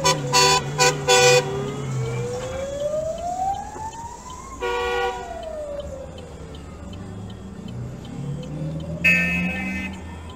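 Fire engine's siren wailing, slowly rising and falling in pitch, with horn blasts over it: a quick series of short honks in the first second and a half, another about halfway, and a higher one near the end. Engine hum underneath.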